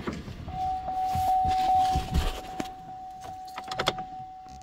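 Knocks and rustling of someone climbing into a pickup truck's cab, with a steady high tone sounding from about half a second in.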